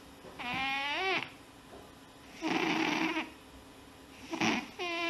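A sleeping pet snoring in a slow breathing cycle. A whistly snore rises in pitch, then about two seconds later comes a noisy, unpitched snore, and the whistly one returns near the end.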